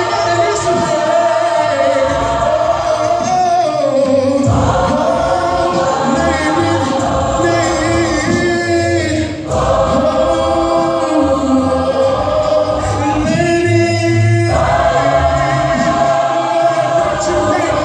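Gospel choir singing in long held chords, the sustained notes changing every four to five seconds.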